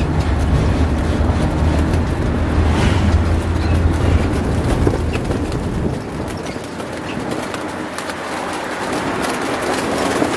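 Wind buffeting the microphone and road noise while riding in the open cargo bed of a moving pickup truck; a deep rumble drops away about six seconds in.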